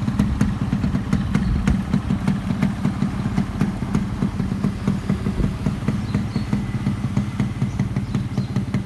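Yamaha RX-King two-stroke single-cylinder engine idling steadily through its standard exhaust, giving the throbbing 'ngorok' growl prized on this bike, with some sharp ticks during the first two seconds.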